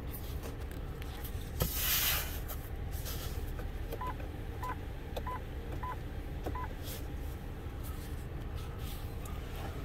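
2005 Mercury Montego's 3.0 L V6 idling steadily, with five short beeps from the instrument cluster chime about four seconds in, each about two-thirds of a second apart, as the message-centre button is pressed. A brief rushing noise about two seconds in is the loudest sound.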